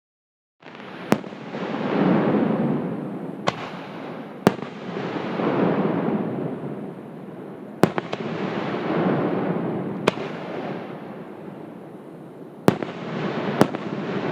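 Aerial fireworks shells bursting at close range: about seven sharp cracks between long rumbling booms that swell and fade every few seconds.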